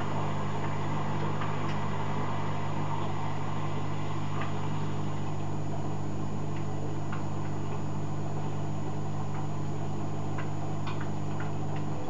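Hoover Dynamic Next front-loading washing machine running a delicates cycle: a steady low hum with a few faint scattered ticks.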